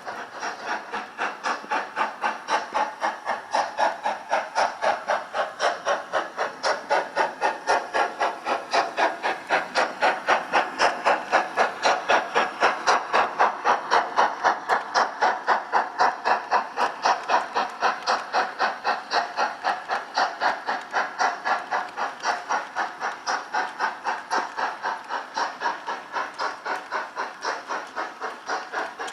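Steady, regular steam-locomotive exhaust chuffs at about two to three beats a second. They come from a model locomotive's Doehler & Haass sound decoder playing an LMS Black 5 sound file through its small speaker. The beats swell a little louder in the middle.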